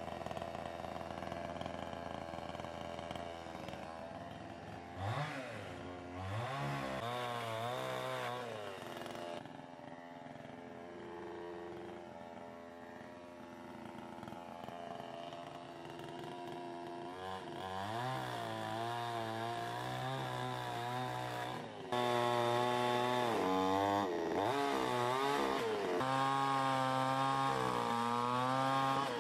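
Kzubr chainsaw running and cutting into a log on a stump, its engine revving up and down again and again. It is loudest over the last several seconds.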